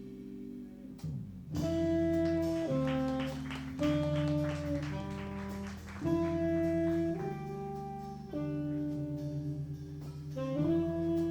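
Jazz quartet of saxophone, keys, bass and drums playing, the saxophone holding long notes that change about every second or two over sustained bass and keyboard chords. The band grows louder about a second and a half in.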